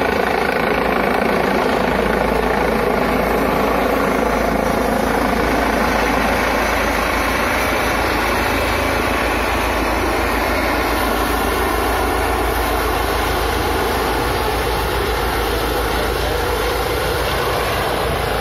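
Light helicopter with a ducted tail rotor flying low overhead on its approach to land: a loud, steady turbine and rotor sound with a fast, even thud of the blades.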